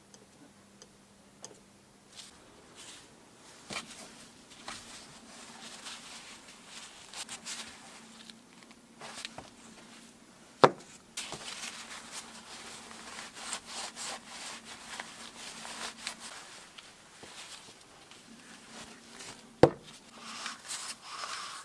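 Gloved hands wiping and handling greasy impact-wrench gearbox parts with a cloth: scratchy rubbing and small clicks of parts being moved. Two sharp knocks stand out, one about halfway through and one near the end.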